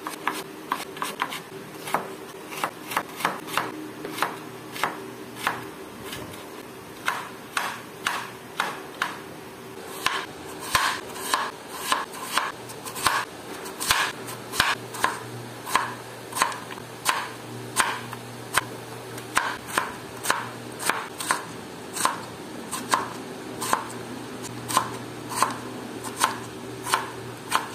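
Chef's knife chopping carrot and potato on a wooden cutting board: a steady series of sharp knocks of the blade on the board, about two a second, over a faint low steady hum.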